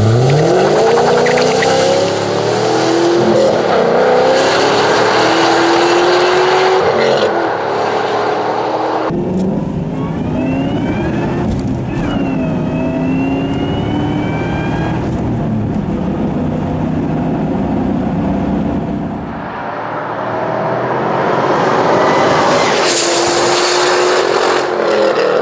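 Cadillac CTS-V coupe's supercharged 6.2-litre V8 through aftermarket stainless headers, X-pipe and 3-inch exhaust with oval mufflers, revving hard with its pitch climbing steeply at the start and then rising more slowly. The sound is cut together from several runs: the tone changes abruptly about 9 seconds in and again near 20 seconds, with rising and falling pitch between.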